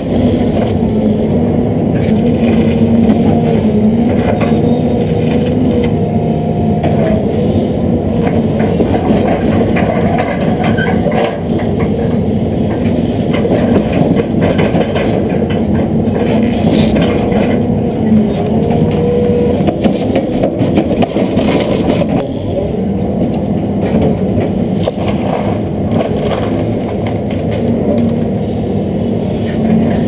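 LiuGong excavator's diesel engine and hydraulics working under load, the pitch rising and falling as the arm and bucket move. Scattered cracks and crunches of pine brush and roots breaking as the bucket and thumb tear into the brush and pull a stump.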